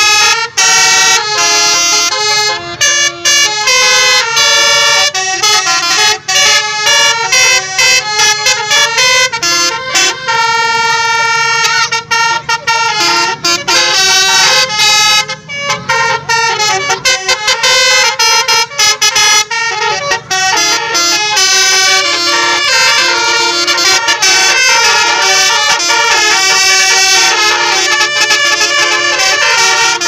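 Basuri telolet musical air horns on a tour bus playing a fast, loud melody, one stepped note after another with several horn tones often sounding together.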